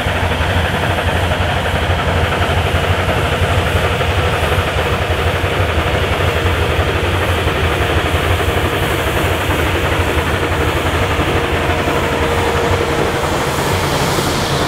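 Narrow-gauge steam train running, a loud, steady noise of the train on the move.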